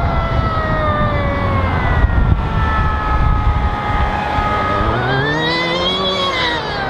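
Lifted Mazda Miata driving by on a gravel road. Its engine note falls slowly in pitch as it passes, over a low rumble. About five seconds in the engine revs up and back down, then rises and falls again near the end.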